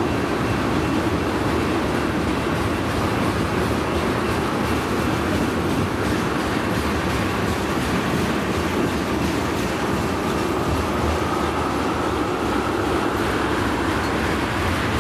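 Freight train of tank cars rolling past: steady wheel-on-rail rumble with light clickety-clack of the trucks. A faint rising whine comes in over the last few seconds.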